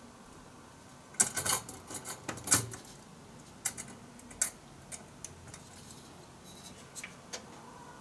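Light metallic clicks and clinks from a Noctua NH-D15 heatsink as it is set down onto the CPU and nudged into place over its mounting hardware. There is a small cluster about a second in, another at about two and a half seconds, then scattered single clicks.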